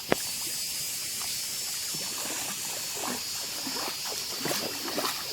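Steady outdoor water sound of a shallow stream or pond, under a steady high hiss. Faint distant voices come in during the second half, and there is a sharp click at the very start.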